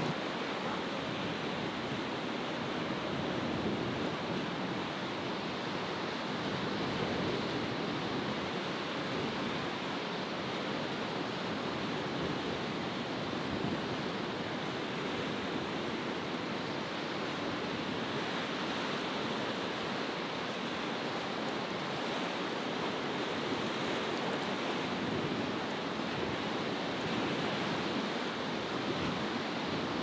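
Steady rush of breaking waves and wind over rough, choppy sea.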